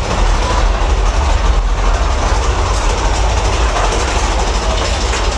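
Big Thunder Mountain Railroad mine-train roller coaster running along its track: a steady, loud rumble of the cars and wheels.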